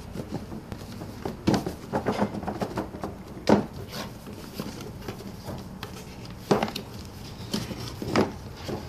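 Large cardboard doll box being handled and opened on a wooden floor: scattered taps, scrapes and rustles of cardboard, with a few louder knocks as the box is tipped and the inner box slid out.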